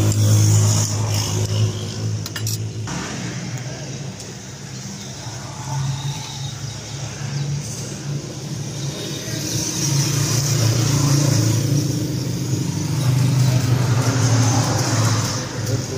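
Cummins 6BT inline-six diesel engine turning over with a steady low drone that swells and eases every few seconds, during an attempt to start it after its fuel pump ran dry.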